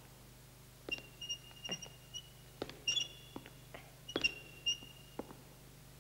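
An elderly woman's slow footsteps with a walking cane knocking on the floor. Her orthopaedic boot gives short high squeaks with the steps, in three clusters.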